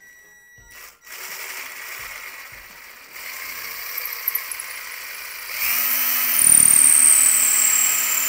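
Power drill with a 3/16-inch bit boring deeper into a wooden handle, enlarging a pre-drilled hole. A grinding noise starts about a second in and gets louder about three seconds in; from about five and a half seconds in it runs louder with a steady hum and a high whine.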